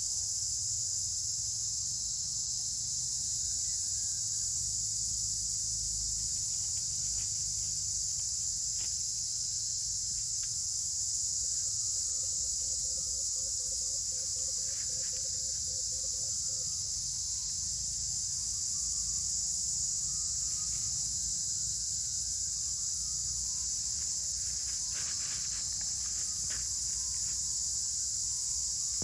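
Steady, high-pitched insect chorus, with a few faint clicks and a low pulsing call for about five seconds in the middle.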